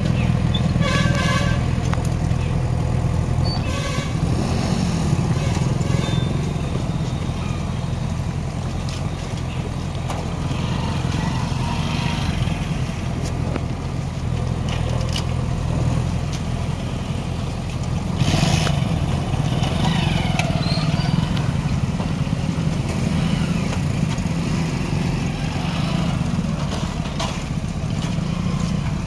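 Small motorcycle engines idling and riding across a railway level crossing, running steadily the whole time.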